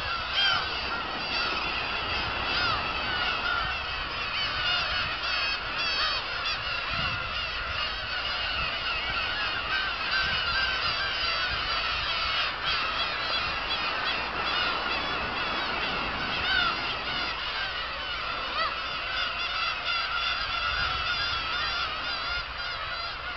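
A large flock of black-tailed gulls calling without a break: many overlapping cat-like mewing cries.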